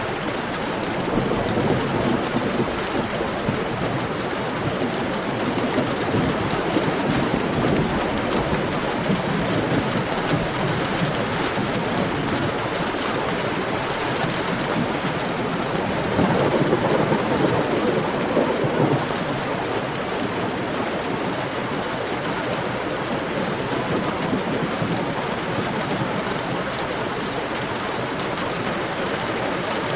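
Heavy rain falling steadily, with low rolling thunder. The thunder swells about two seconds in and again a little past the midpoint.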